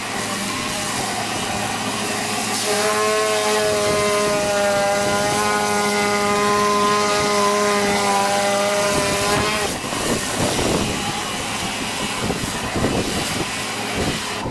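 Pressure washing: a steady hiss of spray, with a steady pitched machine hum, like an engine held at constant speed, from about three seconds in until nearly ten seconds.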